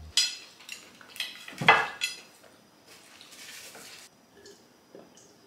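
A ceramic plate clinking and clattering against a table as it is moved and set down, with a few sharp knocks in the first two seconds, the loudest near the end of them. A soft paper-napkin rustle follows.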